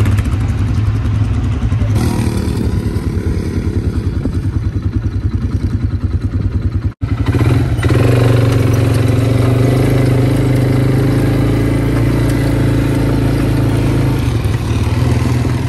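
Quad bike engine running steadily while riding, with a brief dropout about seven seconds in and a louder stretch after it.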